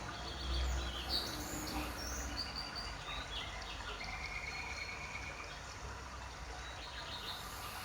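Quiet background ambience: a steady low hum with a few faint, short bird chirps scattered through it.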